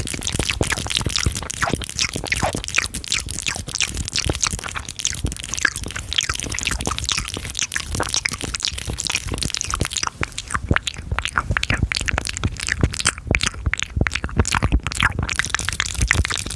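Fast, wet mouth sounds close to a very sensitive microphone: a rapid run of tongue clicks and lip smacks, several a second, over a low rumble.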